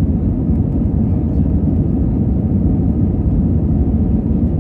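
Steady low rumble of an Airbus A320-family airliner's jet engines and airflow, heard inside the cabin during the climb after take-off.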